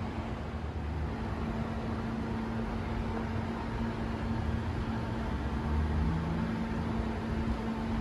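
Steady low mechanical hum with a constant drone over a low rumble, the running of an engine or similar machine.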